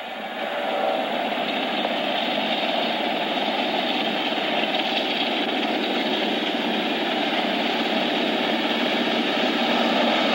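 Diesel freight locomotives running under power as the train approaches and passes close by, a steady engine and rail rumble that grows louder near the end. The last of a horn blast fades out in the first second.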